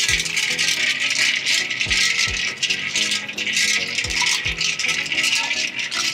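A steady rush of splashing water as salted mackerel fillets are rinsed in ice water to wash off the curing salt. Background music with a steady beat runs underneath.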